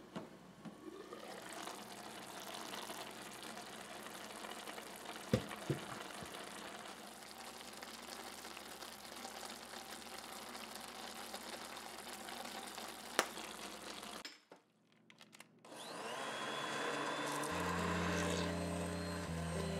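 Steady hiss of a pot of cauliflower soup simmering, with a few sharp taps of a utensil on the pot. After a brief break, near the end, a hand-held immersion blender runs in the soup under soft background music.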